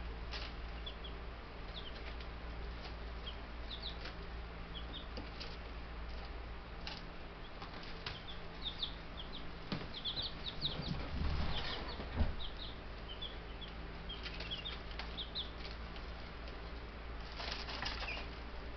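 Young Buff Brahma chicks peeping, with short high cheeps scattered throughout. There is a flurry of wing flapping and scuffling about the middle, ending in a knock, and another flurry near the end, over a steady low hum.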